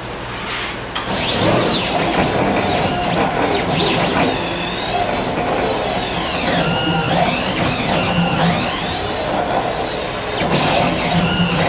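Gantry laser cutter cutting wood veneer. Its motors whine in rising and falling sweeps as the head traces curves, over a steady rush of air that starts about a second in.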